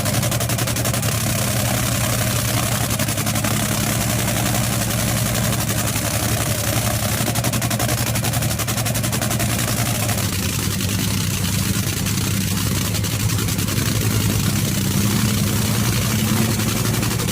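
Top fuel dragster's supercharged V8 running on nitromethane, cackling at idle: a steady, rapid popping crackle. The cackle comes from the high-concentration nitromethane fuel, which burns less smoothly than gasoline.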